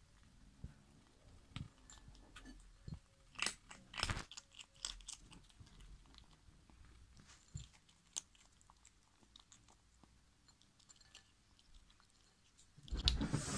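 Kitten eating dry kibble from a bowl: faint, irregular crunching and clicking of chewing, with a louder bump near the end.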